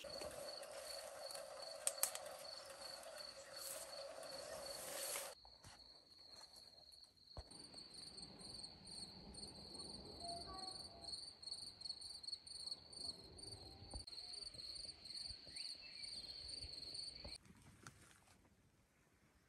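A cricket chirping steadily: a high, rapid pulsed trill that repeats evenly and stops near the end. For the first five seconds it sits over a louder hiss and low hum that cut off suddenly, with a couple of sharp clicks about two seconds in.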